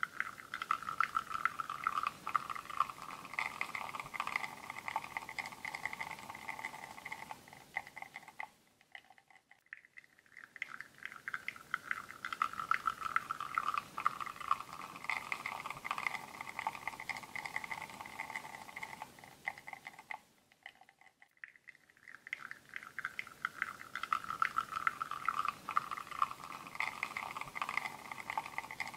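Espresso shot pouring from a La Marzocco Linea Mini's bottomless portafilter into a cup, a crackly, fizzy trickle and spatter. It fades almost away and swells again twice, about twelve seconds apart.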